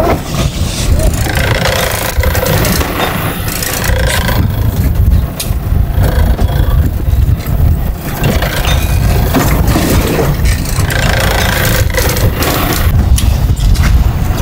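Fishing boat's engine running with wind buffeting the microphone at sea: a loud, steady low rumble.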